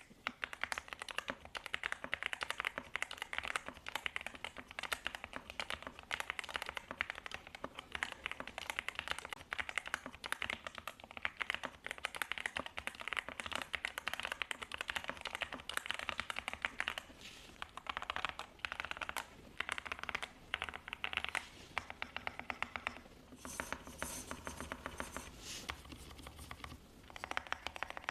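Typing on a stock, unmodded Yunzii AL66 CNC-aluminium mechanical keyboard with Yunzii Milk linear switches and PBT keycaps: a fast, continuous run of keystroke clicks with a few brief pauses.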